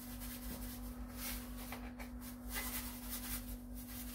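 Soft, repeated rubbing and rustling of fingers adding a pinch of salt to the dough ingredients, over a steady low hum.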